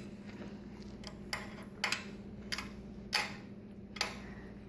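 Sharp little metal clicks, roughly one every two-thirds of a second, as the seat clamp bolt on a fixed-gear bike's seat post is turned finger-tight.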